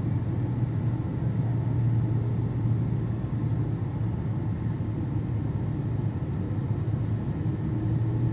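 Steady cabin noise inside a Boeing 777-200 descending on approach: a constant low drone from its Pratt & Whitney PW4000 engines under the rush of airflow.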